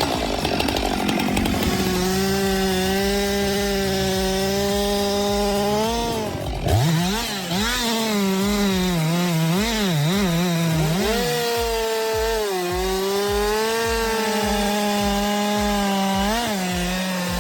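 Chainsaw engine running at high revs while cutting wood. In the middle the pitch dips and recovers several times as the chain bogs down under load in the cut, then it settles back to a steady high note.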